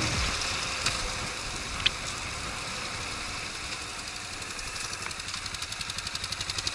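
Yamaha YBR125's small single-cylinder four-stroke engine running as the motorcycle slows to a stop, over a steady hiss of wind and road noise that fades as it slows. Toward the end the engine's idle comes through as a rapid, even beat.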